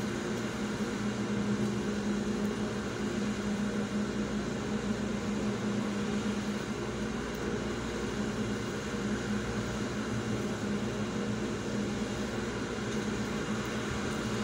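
Steady mechanical hum of a vehicle running while parked, heard from inside its cabin, with a constant low tone and the rush of the air-conditioning fan.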